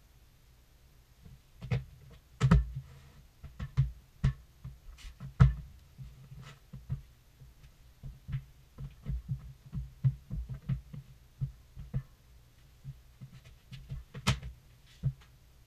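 Irregular thumps and knocks, with sharper clicks here and there, of boots and knees on a bare subfloor as floor tiles are set down and stepped on to press them into place.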